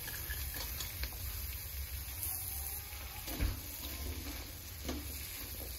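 Chopped onions frying quietly in butter in a pan, with a few light taps and scrapes of a spatula against the pan.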